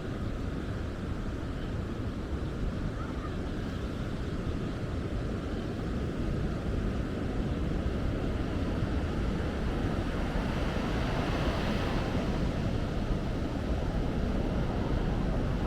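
Ocean surf washing onto a sandy beach, a steady rush with wind rumbling on the microphone. A wave's wash swells a little louder near the end.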